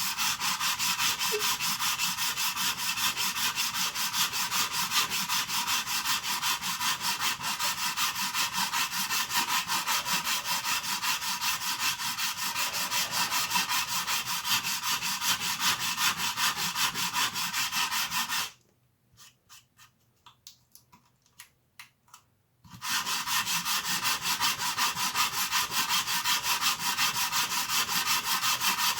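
A hand file rasping back and forth over hard plastic in rapid, continuous strokes as it cuts away excess material. The filing stops for about four seconds after the midpoint, leaving only a few faint taps, then starts again.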